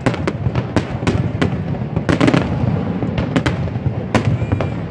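Aerial fireworks display: a dozen or so sharp bangs of shells bursting, irregularly spaced and coming in quick clusters, over a continuous low rumble.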